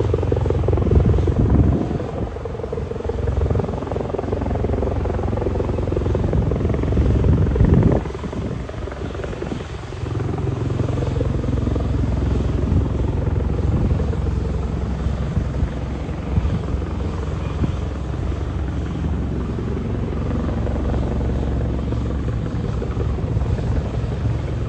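Rescue helicopter hovering while hoisting a person on its winch cable: steady rotor and turbine noise, swelling louder for a moment about eight seconds in.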